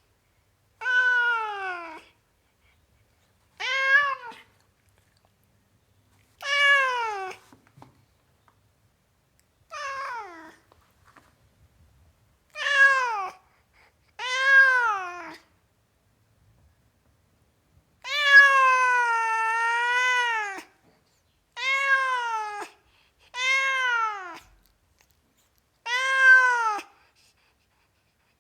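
Tomcat meowing over and over: about ten separate meows a couple of seconds apart, each about a second long and dropping in pitch at the end. One longer, drawn-out meow of about two and a half seconds comes about two-thirds of the way through.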